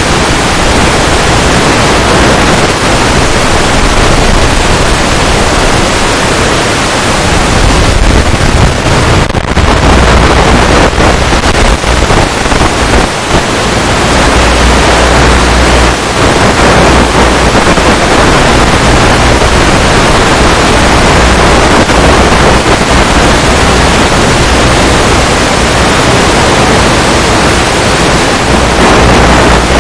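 Loud, steady hiss of static from an analog FPV video link's audio channel, with no motor whine or other distinct sound standing out.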